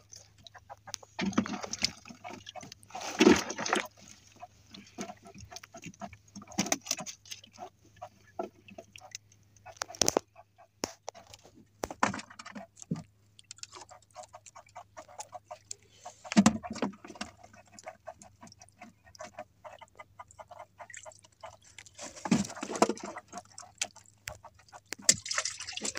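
Irregular clicks, knocks and rustles as fishing handlines are hauled in and handled in a small wooden outrigger boat, with louder clusters about three seconds in, at ten seconds, midway and near the end.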